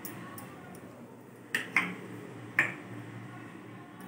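A few short, light clicks of a metal spoon against a small plastic chutney bowl, three in all, about one and a half to two and a half seconds in, over a faint steady background.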